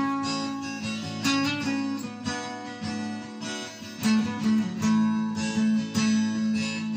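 Acoustic guitar strummed, chords ringing on between strokes, in an instrumental passage with no singing.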